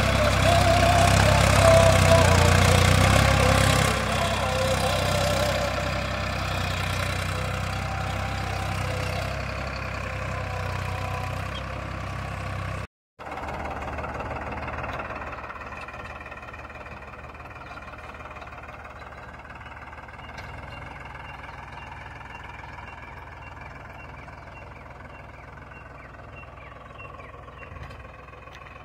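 Tractor engine running steadily while ploughing, loudest in the first few seconds and then fading off. It drops out for a split second about halfway through and comes back quieter.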